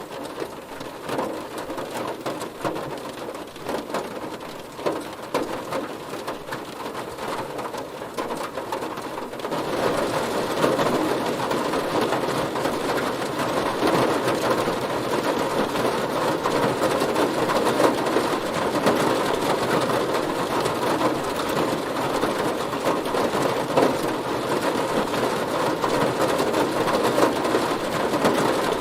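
Heavy rain drumming on a car, a dense steady patter of drops on the metal and glass. It gets abruptly louder and denser about ten seconds in, then holds steady.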